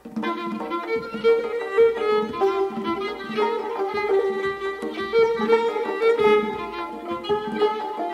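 Instrumental music: a bowed string instrument plays a melody, moving from one held note to the next.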